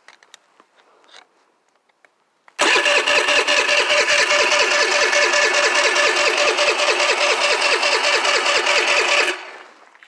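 Small mini bike engine being cranked by its electric starter for about seven seconds, a steady pulsing churn that starts abruptly and stops without the engine catching.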